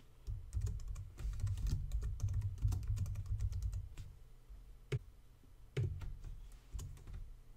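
Typing on a computer keyboard: a quick run of keystrokes for about four seconds, then a few single clicks.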